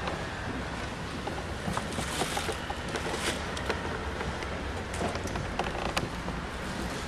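Kneeling pilgrims shuffling up the wood-covered steps of the Scala Santa, with scattered light knocks of knees and shoes on the wooden treads over a steady low rumble.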